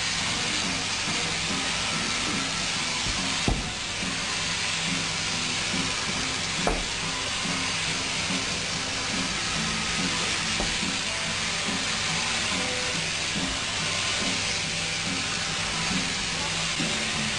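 Overhead-drive sheep-shearing handpiece running steadily as it cuts through the fleece, a continuous buzzing hiss. Two short sharp clicks come about three and a half seconds in and again a few seconds later.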